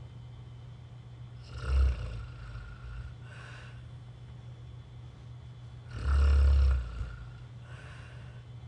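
A sleeping person snoring: two loud, rough snores about four seconds apart, the second longer, each followed by a softer breath about a second and a half later.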